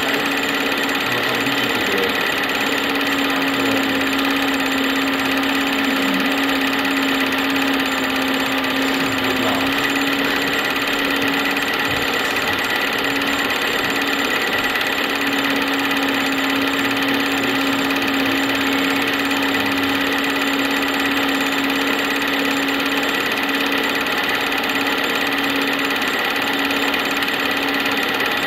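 Film projector running, a steady mechanical whir and clatter with a constant hum.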